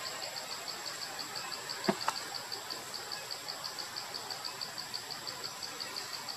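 Insects chirping in an even rhythm of about five chirps a second over a steady high-pitched whine. Two brief sharp sounds come about two seconds in.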